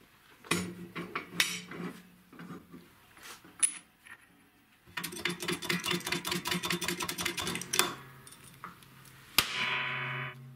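Metal clinking and knocking as a steel wheel hub is set up on a homemade hydraulic press, then a run of rapid, even ticking for about three seconds. Near the end a single sharp metallic crack, followed by about a second of ringing.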